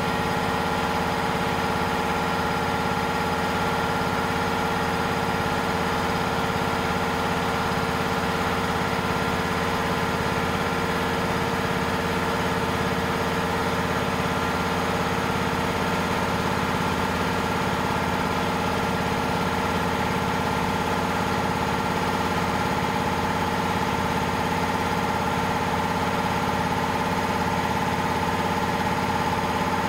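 Walter GK 880 electric piston air compressor running steadily, an even mechanical drone with a fast regular pulse as it pumps up its 500-litre receiver tank.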